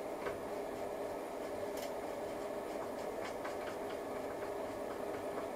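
A few faint, light clicks of a screwdriver and a screw as the ISA expansion card's bracket is fastened into the computer case, over a steady hum.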